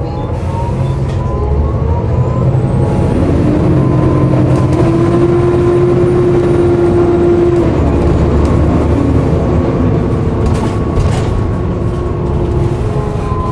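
Volvo B7TL double-decker bus's engine running on the move. About two and a half seconds in, a tone rises, holds steady for about five seconds, then fades, with a faint high whine alongside it.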